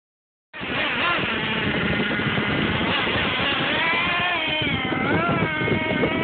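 Nitro glow engine of an OFNA LX Ultra One RC buggy running with a high buzz, then revving up and down from about four seconds in as the buggy pulls away.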